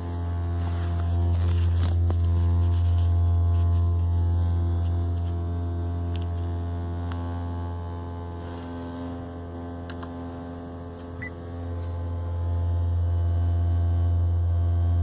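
Low, steady hum from a 2018 Honda Accord Hybrid, with fainter higher tones layered over it; it is loud at first, eases off about halfway through, then swells back up near the end.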